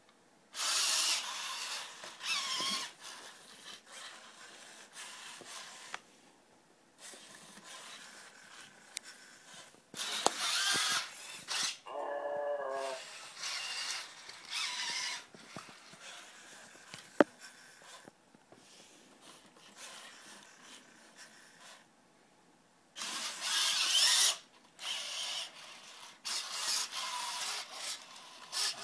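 Genibo QD robot dog's servo motors whirring in bursts of a second or two as it carries out commanded actions. About twelve seconds in, a brief pitched electronic sound comes from its speaker.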